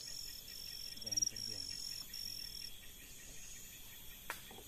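An insect trilling at a high pitch in short, evenly spaced bursts that stop about two and a half seconds in. Faint low voices and a single sharp click near the end.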